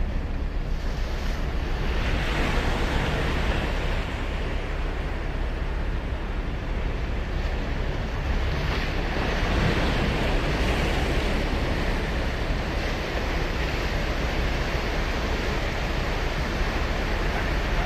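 Ocean surf breaking and washing up a beach: a continuous hiss of water that swells as waves break, about two seconds in and again around nine seconds in.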